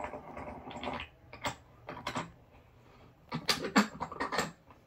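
Metal desk clamp of a microphone boom arm being set on the desk edge and its bolt tightened by hand: a soft rustle, then a series of sharp clicks and knocks, loudest in a quick cluster about three and a half seconds in.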